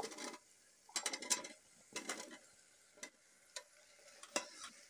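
Metal spoon scraping fried baby jackfruit pieces out of a steel bowl into the masala in a pressure cooker, then a steel ladle stirring them, in short scrapes about once a second.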